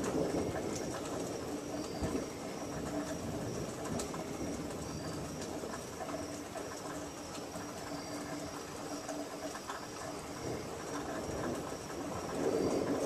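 Night-time outdoor ambience at the tail end of a thunderstorm: a steady low rushing noise that swells slightly near the start and again near the end, with faint high chirps repeating through it.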